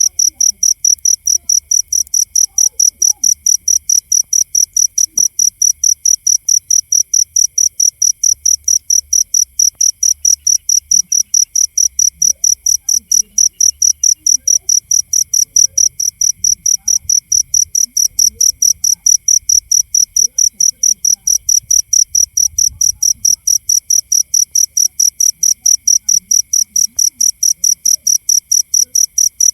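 A cricket chirping loudly in an even, unbroken rhythm of about four high-pitched chirps a second.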